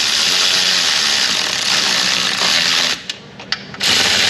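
Power ratchet spinning a bolt, a steady whir that stops for about a second, three seconds in, then starts again near the end.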